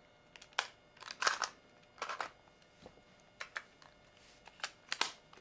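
Sharp plastic clicks and knocks from handling an Aiwa HS-PX370 portable cassette player and a cassette, as the cassette comes out of the player and is put down. The clicks come one or two at a time, about a dozen in all, with the loudest cluster about a second in.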